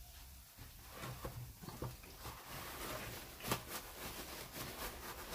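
Batter frying in hot oil in a skillet, a crackling sizzle that builds from about a second in, with a couple of sharper clicks in the second half.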